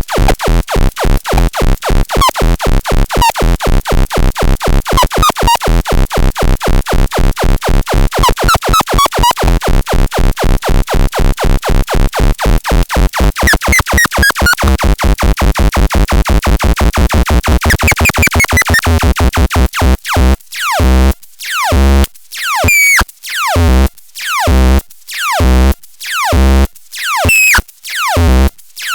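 Electronic synthesizer sound: a fast, even train of pulses with pitches sliding up and down, slowing about twenty seconds in to separate pulses with short gaps between them.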